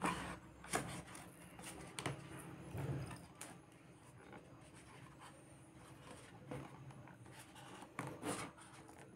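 Faint handling sounds of fingers rubbing and scraping against the cardboard tray of a neckband earphone box while tugging at an earbud held in by a lock, with scattered light clicks and taps.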